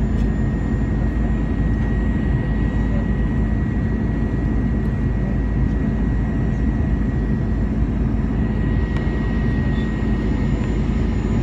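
Cabin noise inside an Airbus A321 descending on approach: a steady rush of turbofan engine and airflow noise, heaviest in the low end, with a steady low hum and a faint high whine running through it.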